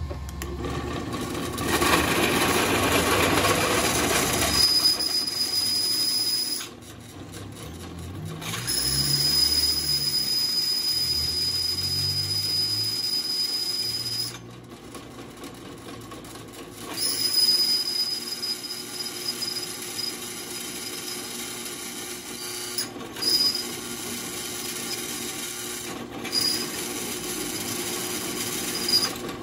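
Bench drill press running, its 14 mm twist bit boring through a thin metal cap, with a steady high squeal while it cuts. The cutting stops twice, for about two seconds each, as the bit is eased off, and briefly a few more times near the end.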